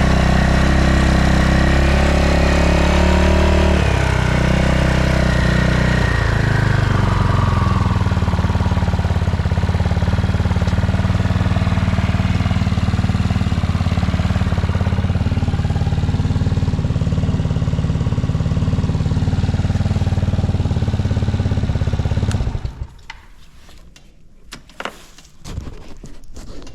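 Yamaha Majesty 250C scooter's single-cylinder four-stroke engine idling. Its speed drops a little about four and again about six seconds in, then it runs steadily until it stops suddenly about twenty-two seconds in, and a few faint clicks follow. It runs with no abnormal noise, by the seller's account.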